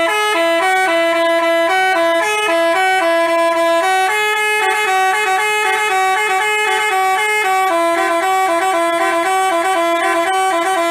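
Basuri-type telolet multi-tone bus horn playing a tune. Two horn tones sound together and step between notes in quick succession without a break.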